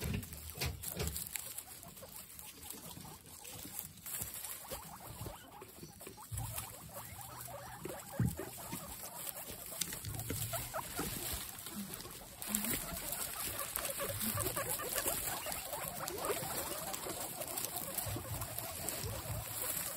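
A group of guinea pigs squeaking excitedly, many short overlapping calls over rustling straw; the squeaking grows thicker and louder a little past halfway.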